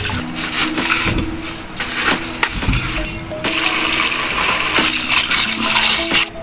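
Tap water running hard into a stainless steel bowl of cut fish pieces, splashing as a hand rinses them, with a fuller splash from about halfway. Background music with steady notes plays underneath.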